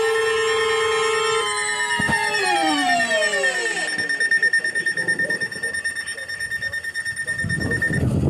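Electronic alarm sound: a steady buzzing tone with many overtones that slides down in pitch about two to three seconds in. A high steady tone carries on beneath it, pulsing about four times a second, and cuts off near the end.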